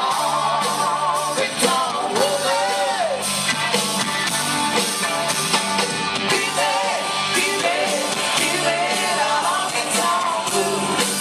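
Live rock band playing a honky-tonk rock song, with a singer's voice over the band.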